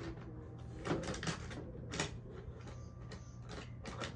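Light clicks and knocks of hard plastic as toy cars and a plastic car-wash playset are handled: about half a dozen scattered taps, the sharpest about a second and two seconds in.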